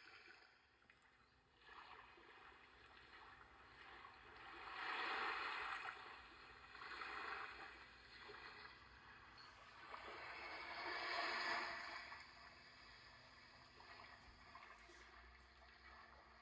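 Faint waves washing on the beach, swelling and fading three times.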